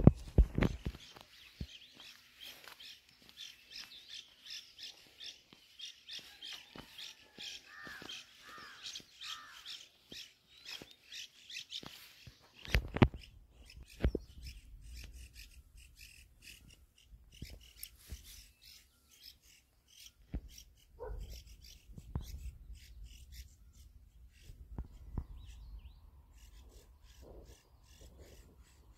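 Birds chirping and calling in a dense chorus that thins out after about twelve seconds, with a few sharp thumps, the loudest about thirteen seconds in.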